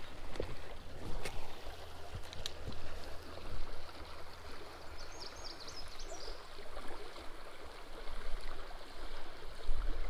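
Creek water running over a shallow rocky riffle, a steady rush with a few faint ticks.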